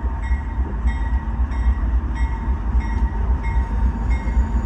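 CSX diesel locomotive creeping forward through the yard, its engine rumbling low, with its bell ringing steadily a little more than twice a second.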